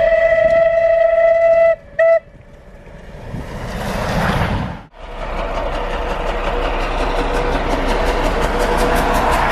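Steam locomotive whistle: one long blast, then a short toot. Then the rising rush of a steam train approaching and passing at speed, with a rapid steady beat.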